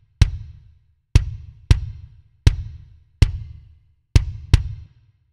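Kick drum track played back solo: seven hits in an uneven pattern, each a sharp click over a low boom that dies away. It runs through a JS 1175 compressor, an 1176-style fast-attack design, set with a slow attack and faster release to make the kick hits sound more even. The compressor's mix is being raised from nearly dry to fully compressed.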